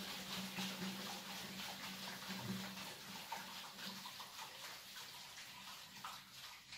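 Waste water running down a bare PVC sewer riser, a faint rushing through the pipe wall that dies away over the last few seconds. It is the neighbours' sewer use heard through an unsoundproofed plastic stack.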